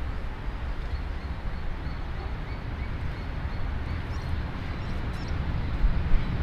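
Low, steady rumble of a distant Victorian Railways K class steam locomotive working towards the line-side, mixed with wind buffeting the microphone, and small birds chirping faintly.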